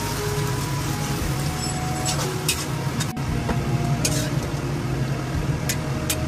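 Leafy greens sizzling in a hot wok while a metal spatula stirs and scrapes them, with scattered sharp clinks of metal on the wok, over a steady low hum. Near the end the greens are scooped out onto a plate.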